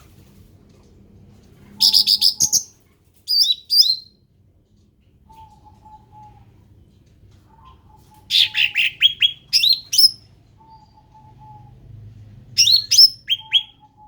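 Cucak ranting songbird singing: three short bursts of quick, high chirping notes, each a fast run followed by a brief second phrase, with pauses between them.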